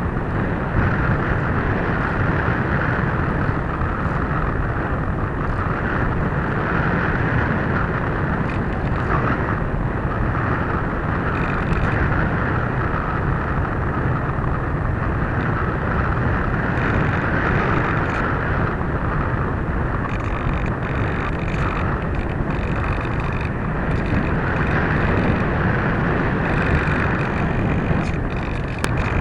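Steady rush of wind over the onboard camera's microphone of a Multiplex EasyGlider Pro RC model plane in flight, dipping briefly near the end.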